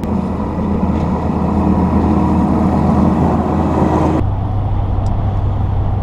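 Compact track loader's engine running steadily. About four seconds in it cuts off abruptly to the steady low drone of a pickup truck heard from inside the cab while driving.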